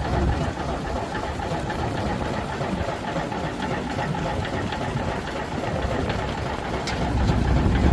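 Steam engines driving a sawmill, running steadily with a mechanical clatter.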